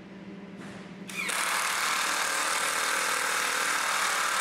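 Power drill driving a 2.5-inch screw into a cedar log dowel joint; the motor starts about a second in and runs steadily under load.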